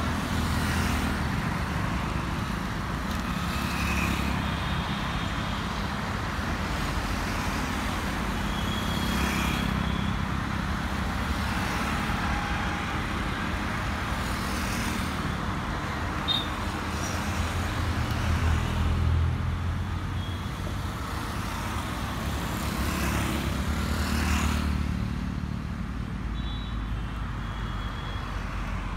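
Road traffic on a multi-lane road: cars and motorcycles passing one after another. Steady engine and tyre noise swells each time a vehicle goes by close.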